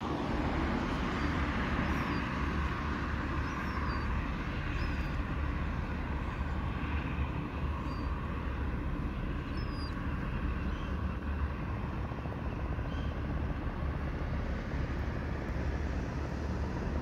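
Steady low outdoor rumble, with faint, short, high bird chirps now and then, mostly in the first ten seconds.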